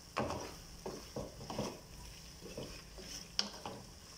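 Wooden spoon stirring meat and tomato sauce in a stainless steel pot, with irregular scrapes and knocks against the pot over a faint steady sizzle.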